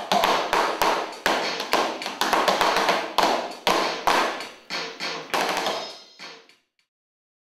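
Rhythmic body percussion, hands slapping the chest and thighs in an even beat of about three slaps a second. The slaps grow fainter and die out about six and a half seconds in.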